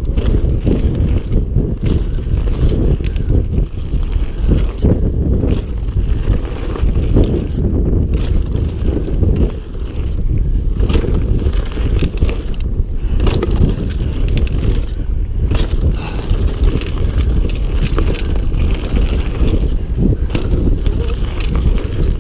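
Mountain bike riding fast down a rough gravel trail: wind buffeting the microphone, tyres crunching over loose stones, and frequent sharp clatters and knocks from the bike over bumps.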